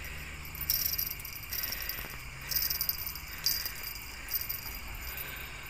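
Night insects trilling: a steady high-pitched chorus, with louder buzzing trills of about a second each coming three or four times, over a low steady hum.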